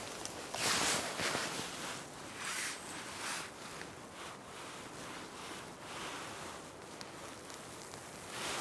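Rustling and handling noises as a person crouches and works a tent guy line and peg in grass: a few short, hissy bursts, the loudest about a second in, with faint steady outdoor hiss between.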